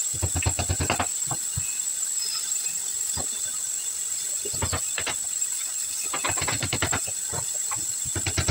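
Short bursts of rapid clicking, four in all, from fastening work on a particleboard cabinet carcass, over a steady high hiss.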